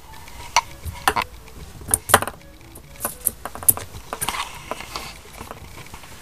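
Kittens playing with a small hard plastic ball: an irregular string of light clicks and clinks as it is batted about and knocks against things, the loudest about two seconds in.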